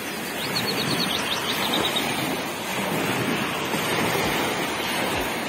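Small waves washing steadily onto a pebble river shore, an even rush of water with wind buffeting the microphone.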